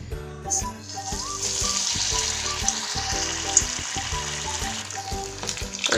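Tapioca vada dropped into hot oil in a wok and deep-frying on a low flame. A steady sizzle of bubbling oil starts about half a second in and keeps on.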